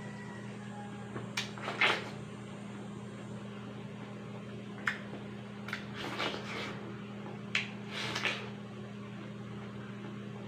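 Several crisp, wet bites and slurps into a juicy slice of watermelon, close to the microphone, coming every second or two and loudest about two seconds in, over a steady low hum.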